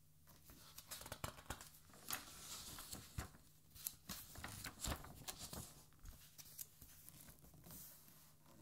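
A page of a large hardcover art album being turned by hand: paper rustling with crisp snaps and crackles, busiest in the middle and thinning out over the last couple of seconds.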